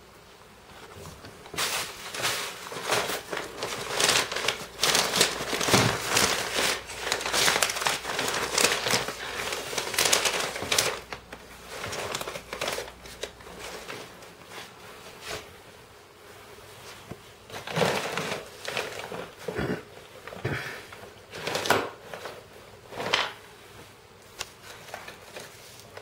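Rustling and crinkling from close handling, dense and continuous for roughly the first ten seconds, then a few separate rustles near the end.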